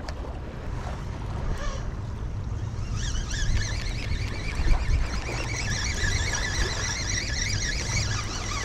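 Spinning fishing reel whirring continuously from about three seconds in, a high-pitched buzzing, as a hooked tailor is brought in on a fast retrieve. Wind rumbles on the microphone throughout.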